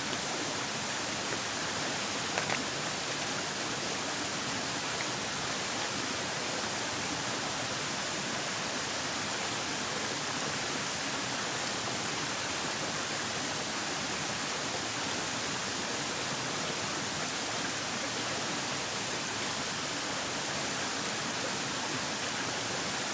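Shallow rocky stream running steadily over and between boulders, an even rushing. One small knock about two and a half seconds in.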